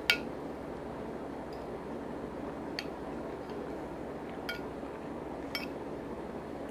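Eating utensil clinking against a dish: a sharp ringing clink at the start, then three lighter clinks spread through the rest, over a steady background hiss.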